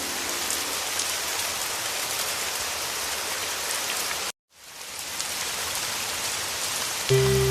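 Steady heavy rain, an even hiss of drops, that cuts out suddenly about four seconds in and fades back up within a second. Near the end, music with sustained low tones comes in over the rain.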